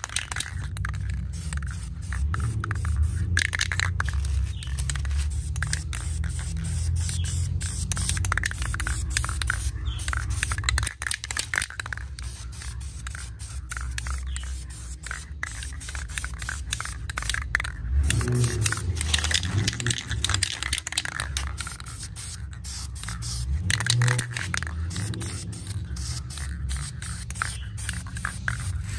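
Aerosol spray paint hissing from the can as a second, even coat is sprayed onto a car wheel rim, with a low rumble underneath.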